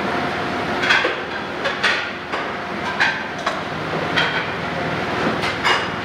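Dish-return conveyor belt running with a steady rolling rattle, while dishes clatter in about five sharp knocks as plates are cleared from the belt.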